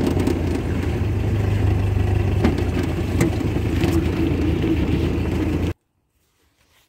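A 1961 Land Rover's freshly rebuilt engine (rebored block, reground crank) running steadily while the vehicle drives on the road, with a few light rattles. The sound cuts off abruptly near the end.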